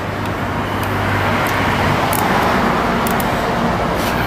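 Steady rushing background noise over a low hum, swelling slightly a second or two in, with a few light clicks.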